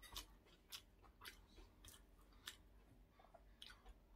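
A person chewing a mouthful of food: faint, irregular wet clicks and soft crunches.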